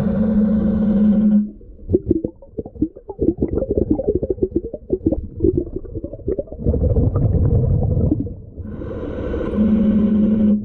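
Scuba diver breathing through a regulator underwater: a humming inhale at the start, then a long crackling, bubbling exhale that ends in a low rumble, and another humming inhale near the end.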